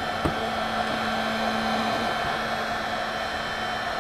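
Cheap heat gun blowing steadily while it heats a solder bullet connector on a wire, with a single short click about a third of a second in.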